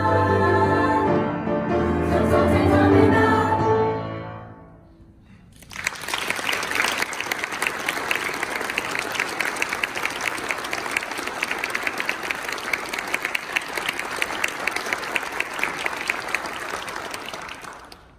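A girls' choir holds its closing chord, which fades away about four to five seconds in. Then the audience applauds until just before the end.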